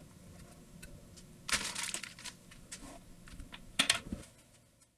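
Scattered small clicks and clatter of keyboard parts being handled, with a short rustling burst about a second and a half in and a cluster of sharper clicks near the end before the sound fades out.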